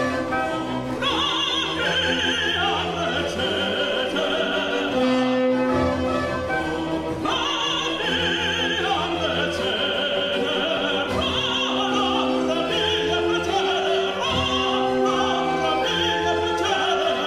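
Operatic singing with vibrato over a classical orchestra, the voice moving in long held and ornamented phrases above sustained orchestral chords.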